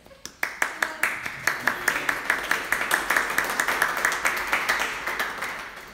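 Audience applauding: a few separate claps at first, quickly building into full steady applause that thins out near the end.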